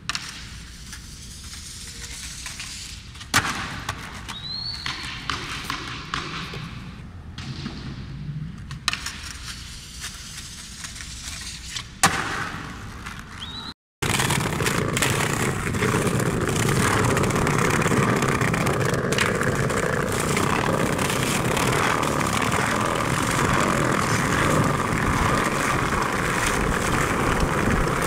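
Skateboard tricks: a few sharp clacks and smacks of the board popping and landing on concrete, with lighter rolling in between. After a short cut, skateboard wheels roll over brick pavers, a steady, loud rumble.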